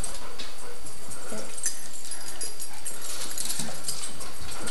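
Small dog scrambling about with a toy on a hardwood floor: quick clicks and scuffs, with a few brief faint whines.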